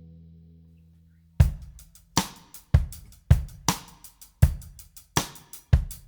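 Background music: a held chord fades out, then about a second and a half in a drum kit comes in with a steady beat of kick, snare and cymbal hits.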